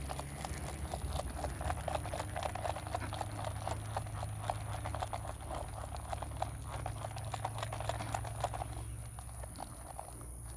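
Footsteps and rustling on the ground, a dense run of small irregular clicks over a low steady hum, easing off a little near the end.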